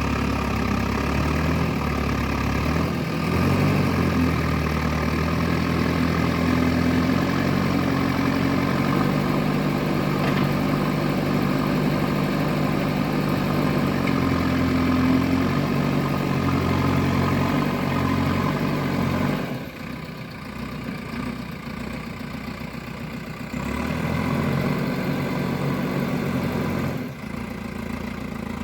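Excavator's diesel engine running at work, its pitch and load shifting. It drops quieter for a few seconds a little past the middle and again near the end.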